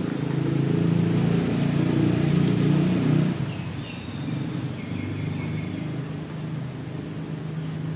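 Low rumble of a motor vehicle engine running nearby, loudest for the first three seconds and then easing off, with faint short high chirps over it.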